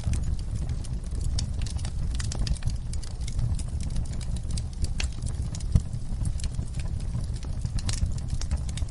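Wood fire in a fireplace crackling, with many small irregular pops over a steady low rumble of flames. One sharper pop comes about two-thirds of the way through.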